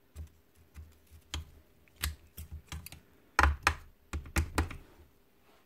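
Scattered metallic clicks and knocks as a rotary hammer's hammer pipe and piston assembly is handled with circlip pliers after its C-clip is refitted, with a louder run of knocks about three and a half seconds in.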